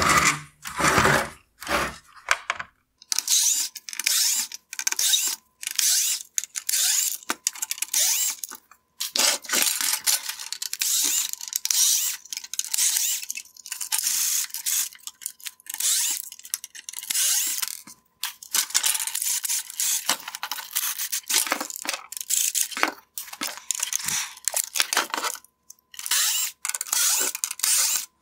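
Screwdriver backing T10 Torx screws out of a plastic LED daytime running light housing. Repeated short scratchy bursts of metal and plastic scraping and rattling, with brief pauses between.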